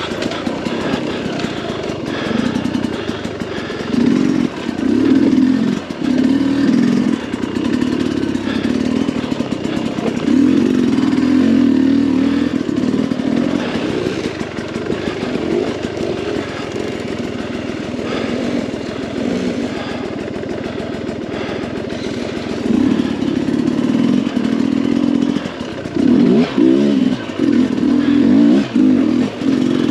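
Sherco 300 SE Factory two-stroke dirt bike engine at low speed in first gear, revving up in short bursts and dropping back to a low putter over and over as it picks its way through tight terrain.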